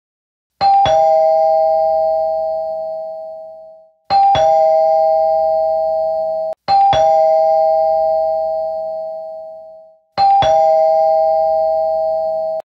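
Two-tone ding-dong doorbell chime, rung four times: each time a higher note and then a lower one, ringing out and fading, with some rings cut off short.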